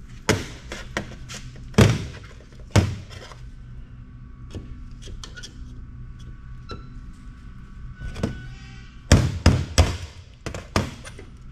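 Hammer striking a chisel against a transformer on a steel worktable, knocking off its legs: about five sharp knocks in quick succession near the end, after three single knocks in the first three seconds.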